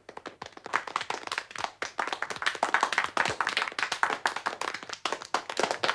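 Clapping: a dense, irregular patter of many overlapping hand claps, like applause.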